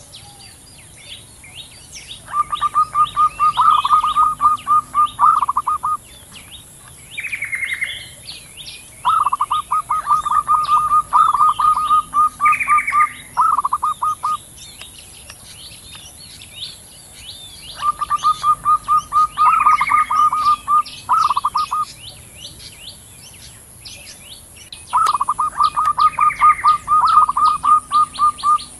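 Zebra doves calling to each other in four bouts of quick, evenly repeated cooing notes, each bout a few seconds long, with a short falling call in each bout. Small birds chirp faintly throughout.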